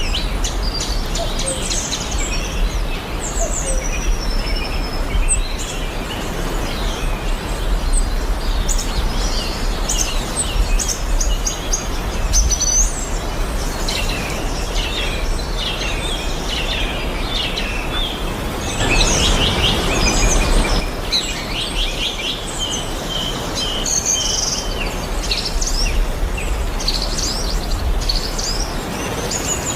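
Several birds chirping and singing in short, overlapping phrases over a steady low rumble, with a brief burst of noise about two-thirds of the way through.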